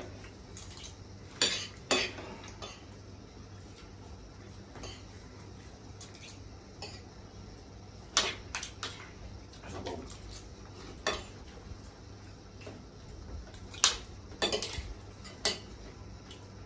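Spoons and fingers clinking and scraping against ceramic plates during hurried eating: scattered sharp clicks at irregular intervals, several close together about fourteen seconds in.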